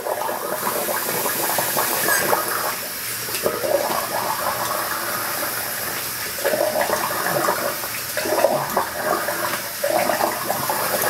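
Tap water running steadily into a bathroom sink, with irregular splashing as hands scoop water over the face.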